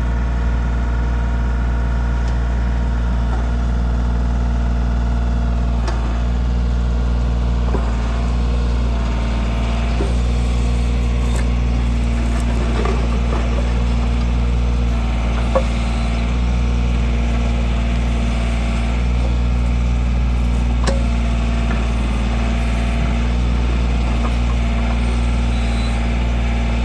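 Kioti tractor's diesel engine running steadily at one speed, with a few light knocks.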